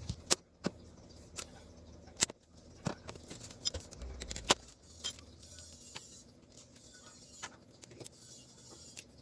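Scattered light clicks and taps, about a dozen sharp ticks at uneven intervals, from small tools, wires and parts being handled during bench work on an amplifier board.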